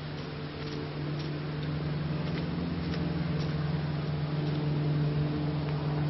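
A steady low mechanical hum from an unseen motor, with a few faint overtones, growing slightly louder. Faint footsteps on a dirt path tick about twice a second.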